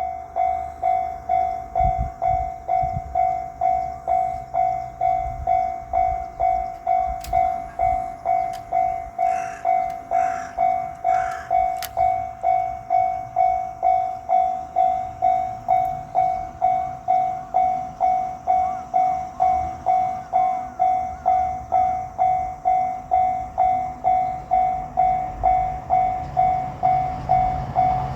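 Japanese railroad-crossing warning bell ringing steadily at about two strikes a second. Near the end, a low rumble from the approaching diesel train rises under it.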